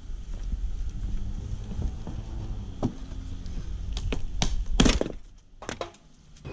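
A claw hammer prying a long rusty metal strip off a camper's wooden wall framing. There is low scraping and creaking, then several sharp cracks and snaps near the end, one louder than the rest, as the strip tears free of the wood.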